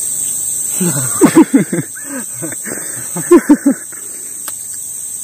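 Steady high-pitched drone of insects, crickets or cicadas. It is broken twice, about a second in and about three seconds in, by a short run of three or four quick voice-like pulses that fall in pitch.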